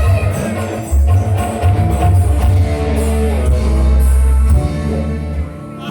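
Live dangdut band music played loud through a sound system, with heavy bass notes and guitar. It gets quieter near the end.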